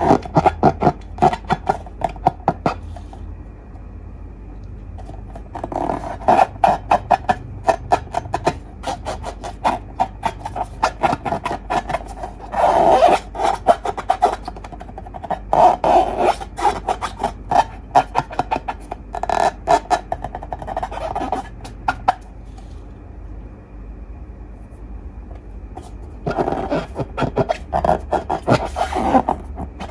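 Slime being squished and worked by hand, giving bursts of sticky crackling and clicking with short pauses between them.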